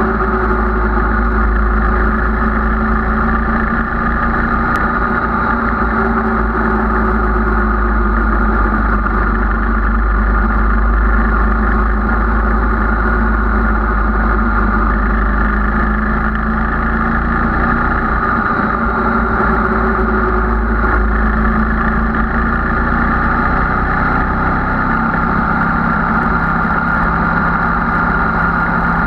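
Sport motorcycle's engine running at a steady cruising pace, picked up by a camera mounted on the bike, with wind rush over the fairing; the engine note drops a little near the end.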